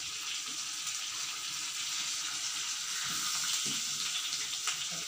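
Masala-coated fish steaks sizzling steadily in hot oil in a frying pan, with a light tap near the end.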